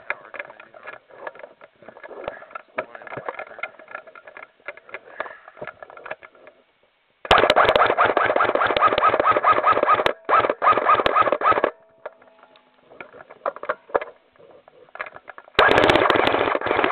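Airsoft electric gun firing on full auto close by: a long burst of about four seconds with a brief break in it, then a short burst of about a second near the end. Before these, faint scattered clicks and pops from the game around.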